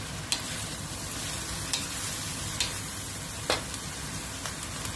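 Egg noodles and vegetables sizzling in a wok as they are stir-fried, with about five sharp knocks of wooden spoons against the wok.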